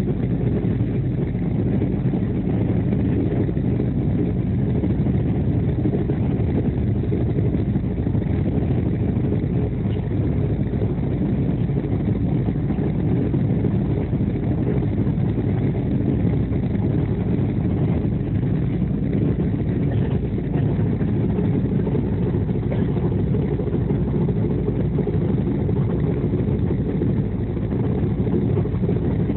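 Steady low running rumble of an express train at speed, heard from inside the coach: wheels rolling on the rails and the coach body vibrating, even throughout.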